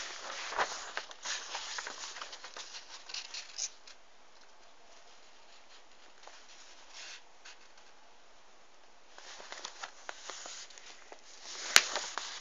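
A sheet of paper rustling and crackling as it is handled and folded close to the microphone. The crackle is busy for the first few seconds, goes quiet for several seconds, then picks up again, with one sharp knock near the end.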